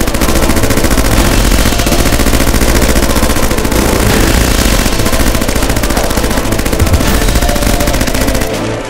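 Sustained automatic machine-gun fire, a sound effect of rapid shots in an unbroken stream, cutting off suddenly near the end.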